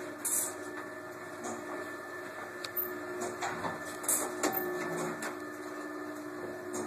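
Vintage Otis electric traction elevator running, heard from inside its small cage car: a steady mechanical hum with scattered light clicks and rattles.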